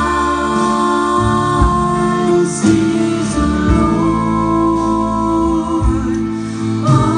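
Live performance by a female vocal trio singing held notes in close harmony, backed by accordion, guitar and double bass.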